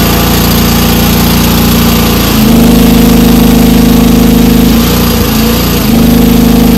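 Huayee HY14C mini excavator engine running steadily. About two seconds in it takes on load and gets louder as the hydraulics are driven up to full pressure for a gauge test. It eases briefly near five seconds, then loads again.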